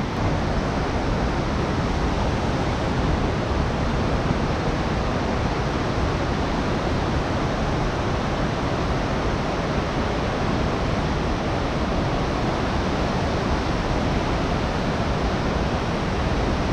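A fast, churning whitewater river rushing steadily below.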